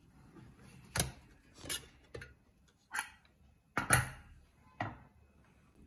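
Bergner stainless steel pressure cooker's lid being handled and taken off: about six sharp metal clicks and clacks, spaced irregularly, the loudest about a second in and about four seconds in.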